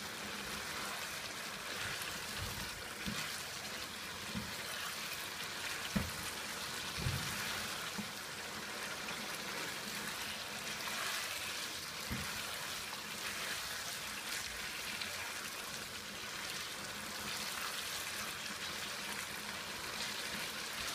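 Chicken karahi masala sizzling steadily in oil in a non-stick pan as it is fried down over a high flame, with a spatula knocking against the pan a few times while stirring.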